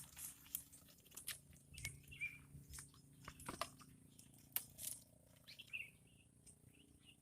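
Faint, scattered crunches and clicks from close-by handling, with a small bird chirping a few times in the background.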